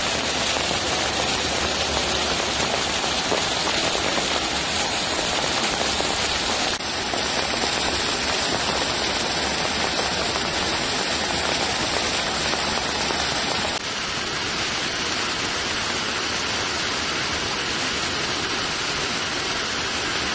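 Floodwater pouring from a culvert pipe and rushing over rocks down a wooded hillside channel: a steady rush of water. The sound shifts abruptly and gets slightly quieter at cuts about 7 and 14 seconds in.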